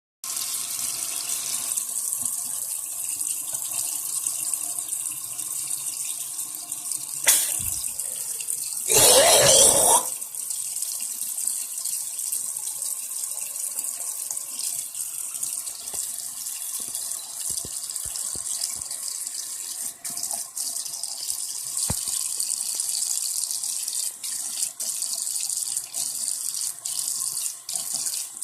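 Tap water running into a sink with a steady hiss; a sharp knock about seven seconds in, and a loud burst lasting about a second around nine seconds in.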